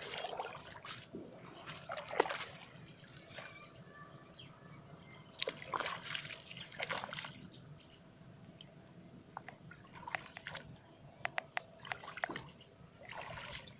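Shallow water splashing and sloshing in irregular bursts as a bamboo fish trap is lifted and handled by a man wading in it. Later on there is a quick run of short, sharp clicks and taps, then a last splash near the end.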